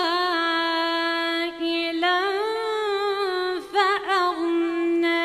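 A woman's solo voice reciting the Quran in melodic, Moroccan-style recitation, drawing the words out into long held notes with small ornamental wavers. About three and a half seconds in she turns the pitch quickly up and down several times, then settles on a long steady note.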